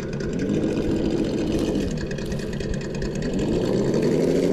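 Simulated engine sound from an RC crawler's Sense Dual ESS sound kit, playing through its speaker. It revs up about half a second in, drops back around two seconds, then climbs again near the end as throttle is worked on a truck that is high-centred on an obstacle.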